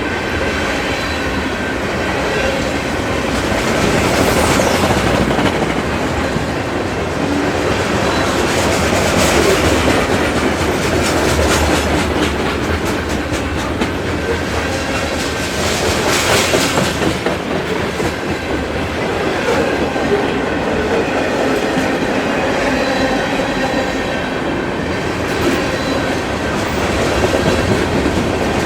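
Freight train rolling past: a steady rumble of steel wheels on the rails, with clicking as wheels cross rail joints and faint high wheel tones.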